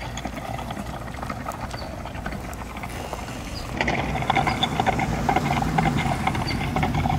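Galloping horse hoofbeats sound effect played through an electric motorcycle's add-on speaker system as the bike rides, louder from about halfway in as it passes close.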